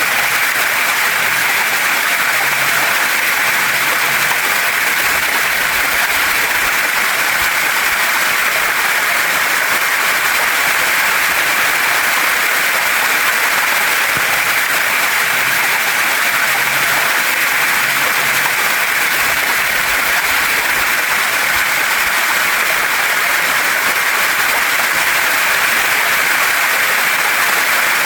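Waterfall and stream water rushing steadily over rocks, an even hiss without any change.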